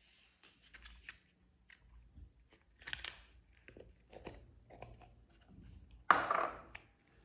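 Slime being squished and kneaded by hand as glitter is mixed in, a string of small sticky clicks and crackles. There is a louder squelch about three seconds in and the loudest, longest one about six seconds in.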